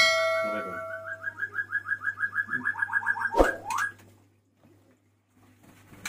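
Subscribe-button animation sound effect: a ringing chime, then a quick run of evenly spaced chirping tones, and a sharp click about three and a half seconds in.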